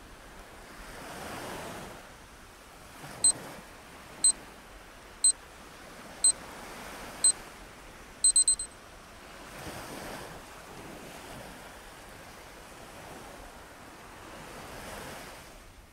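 Ocean surf washing in slow swells, with five short, high electronic beeps a second apart, then a quick triple beep. This is a workout timer counting down the last seconds of an exercise and signalling its end.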